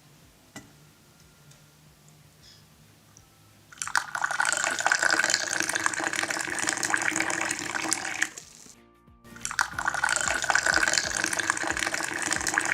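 Liquid pouring in a steady stream, twice: starting about four seconds in and running some four seconds, then again after a short break.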